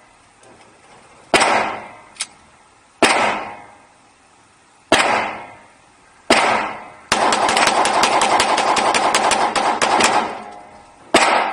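9mm Beretta Brigadier pistol shots echoing in an indoor range. Four single shots come one to two seconds apart, then a rapid string of many shots lasts about three seconds, then one more single shot near the end.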